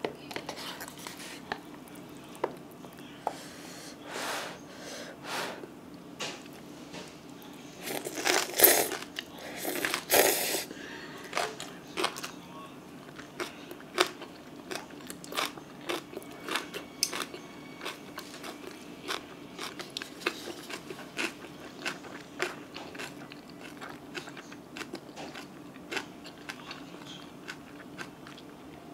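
Close-miked eating of Buldak spicy stir-fried noodles with gat kimchi: chewing with many small crunches and wet mouth clicks, and two louder, longer stretches of slurping-type noise about eight and ten seconds in.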